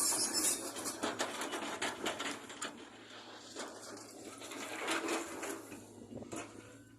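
Caterpillar 320 GC hydraulic excavator at work: a steady low engine hum under a run of clattering clicks and knocks, which thin out as the whole sound grows quieter toward the end.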